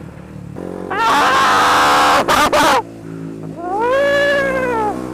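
A man's voice letting out two loud yowls over a running motorcycle engine: a harsh one about two seconds long, then a wail that rises and falls in pitch near the end. The engine is a KTM Duke 125.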